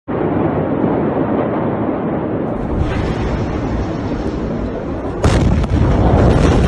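Loud continuous rumbling of a massive ammonium nitrate explosion, with a sharp bang about five seconds in as the blast wave reaches the microphone, followed by a heavier low rumble.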